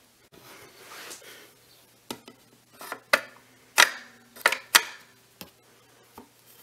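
Webster-Chicago 346 record changer mechanism clicking: about eight sharp, irregular metallic clicks over a faint steady motor hum, the loudest two about halfway through.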